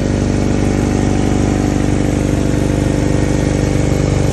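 Honda Accord's F22 2.2-litre four-cylinder engine running steadily at an even speed.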